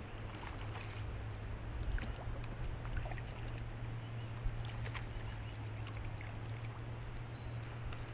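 Flowing stream water, a steady even rush, with a constant low hum underneath and faint scattered ticks.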